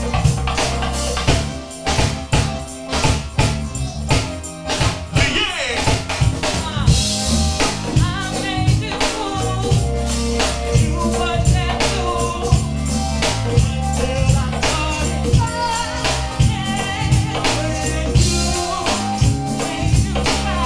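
Music with a steady drum beat, tambourine, bass and a wavering sung or melodic line; about two seconds in it thins to a choppier stretch of separate hits before the full beat returns.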